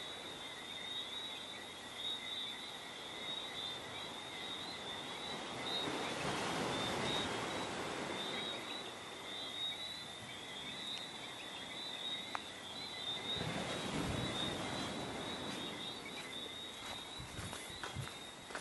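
A steady, high-pitched chorus of small calling animals, with a rush of noise swelling up about six seconds in and again about thirteen seconds in.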